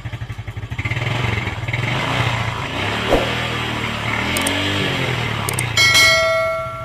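Yamaha Sight 115's single-cylinder four-stroke engine running, first at an even idle, then revved up and back down on the throttle. Near the end a short clicking and a bell-like chime from a subscribe-button sound effect ring out over it.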